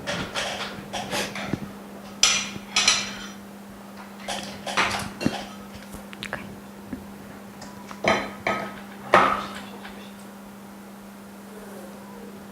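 Tools and small hard parts clinking and knocking on a workbench in irregular clusters of sharp clicks, the loudest about nine seconds in, over a steady low electrical hum.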